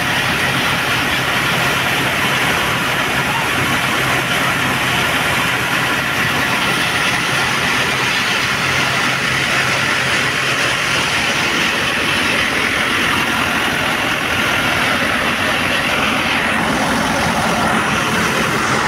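Tractor-powered thresher running steadily at working speed, driven through a PTO shaft by a New Holland 640 tractor's diesel engine: continuous mechanical noise from the machine, with a low steady engine hum underneath that is plainer in the first half.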